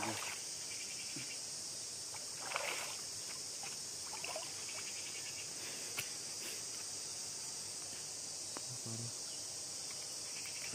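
Steady high-pitched chorus of insects, with a few short splashes of water from wading and handling the line about 2.5 and 4 seconds in.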